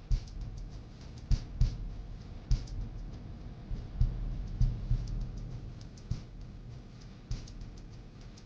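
Background music with a steady low bass, under irregular sharp clicks and taps, about ten of them, unevenly spaced.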